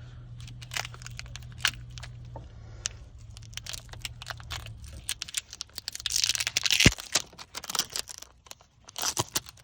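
Handling noise: a run of sharp clicks and knocks with rustling, louder around six seconds in and ending in a sharp knock, then another cluster of clicks near the end.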